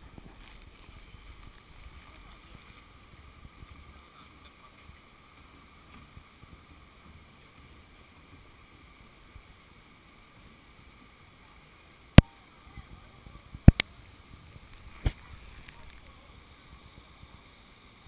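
Steady wash of moving water in a rocky valley pool, broken in the second half by three sharp knocks about a second and a half apart.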